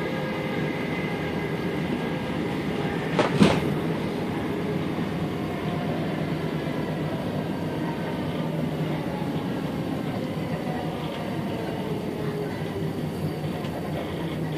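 Steady rumble and wheel-on-rail noise heard from inside an electric passenger train pulling into a station, with one sharp clunk about three and a half seconds in. A faint falling whine comes in later as the train slows.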